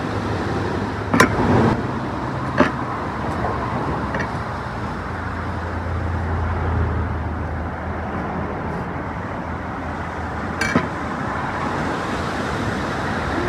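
Steady traffic noise from a road, with a vehicle's low rumble swelling and fading in the middle. Over it, a few sharp knocks of a chef's knife on a wooden cutting board while avocados are cut: two early on, one near the end.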